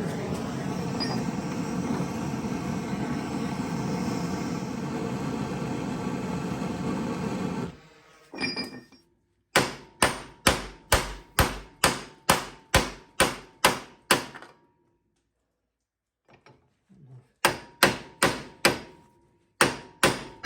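A steady machine drone stops about eight seconds in. Then come runs of sharp hammer blows on the steel U-joint of an ATV prop shaft, about two a second with a metallic ring, in a first run of about eleven strikes, a short pause and a second run, as the seized joint is knocked on to free it.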